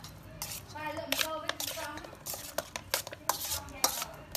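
Kitchen utensils clinking and scraping against cookware in a run of sharp, irregular clicks, as food is being stirred and handled.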